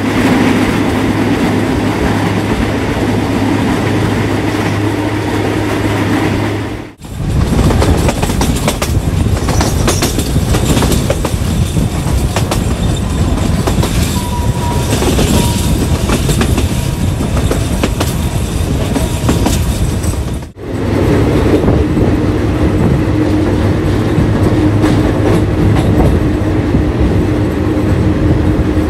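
Passenger train running along the track, heard from beside the carriages: a steady rolling rumble of wheels on rail with a clickety-clack of rail joints. The sound cuts out briefly twice, about a third of the way in and again about two thirds in, changing character each time.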